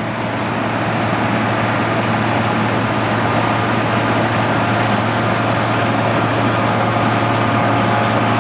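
1975 Claas Senator 85 combine harvester running under load as it harvests wheat: a steady engine hum under the churn of the threshing and separating works. It grows louder over about the first second, then holds steady.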